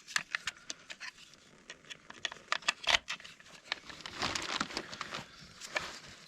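Small campfire of sticks crackling, with irregular sharp pops and a denser patch of crackle about four seconds in.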